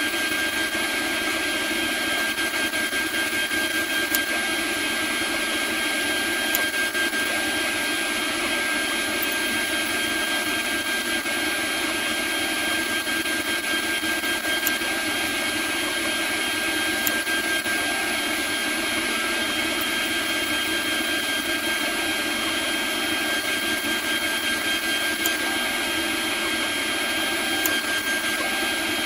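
Robotseed CNC router's spindle running with a steady high whine while its end mill cuts Delrin, over the constant hiss of cutting, with a few brief ticks along the way.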